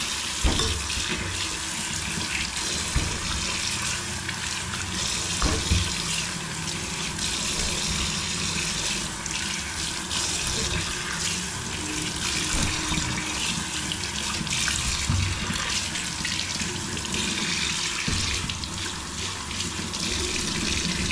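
Kitchen tap running steadily into a stainless steel sink while small fish are rinsed under it, water splashing off hands and fish. A couple of short knocks, about half a second and five and a half seconds in.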